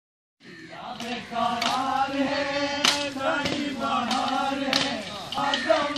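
A group of men chanting a song in unison for Parichamuttukali, the Lakshadweep shield-and-sword folk dance, starting about half a second in. Sharp clacks of the dancers' weapons striking shields cut in several times.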